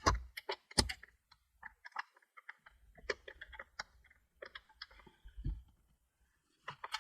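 Irregular sharp clicks and light taps of small hard parts being handled, a few a second. Two louder knocks come near the start and a duller thump about five and a half seconds in.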